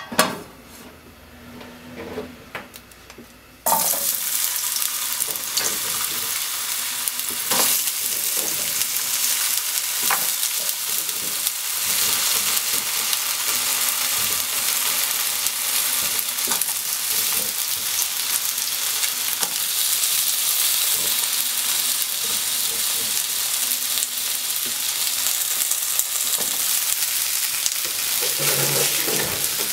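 A few knocks, then about four seconds in, sliced potatoes go into the hot oil in a frying pan and set off a sudden loud sizzle that carries on steadily, with a few light taps and scrapes over it.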